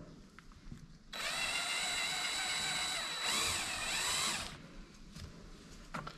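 Cordless drill running for about three and a half seconds, starting about a second in, as it drills the head off a plastic rivet in a power antenna housing. Its pitch dips and recovers a little past halfway as the bit bites.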